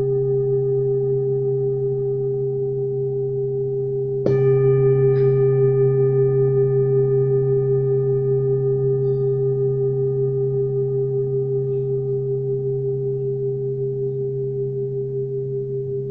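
Singing bowl ringing with a deep, steady, slightly wavering tone. It is struck again about four seconds in, and the ring swells and then slowly fades.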